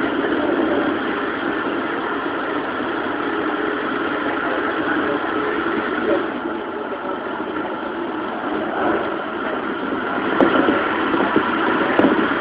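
Keikyu New 1000 series electric train (Siemens GTO VVVF) running at steady speed, heard from inside the car: an even rumble of wheels on rail with a faint steady whine, and a few sharp clicks near the end.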